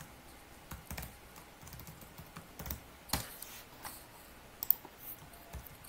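Typing on a computer keyboard: scattered, irregular keystrokes with short gaps between them.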